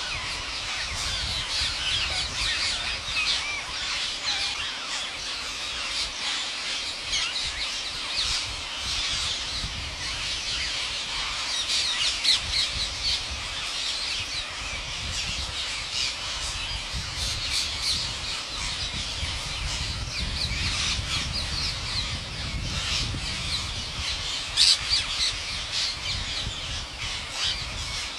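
A huge flock of green parakeets squawking and screeching all at once, a dense unbroken chorus of shrill calls.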